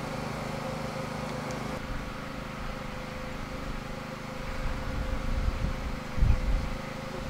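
Pump engine running steadily, pumping water out into the canal. Wind buffets the microphone in the second half, loudest near the end.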